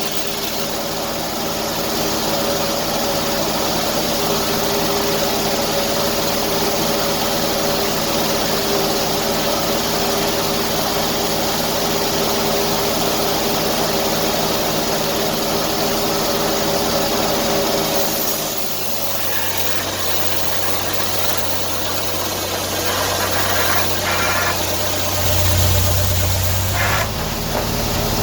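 Engine running steadily. About two-thirds of the way through its note changes, and a deeper hum comes in that grows louder near the end.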